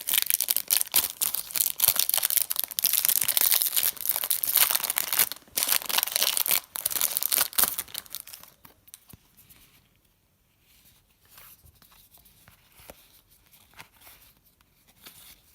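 Foil trading-card pack torn open and its wrapper crinkled, a dense crackle for about eight seconds, then only faint rustling and light clicks of cards being handled.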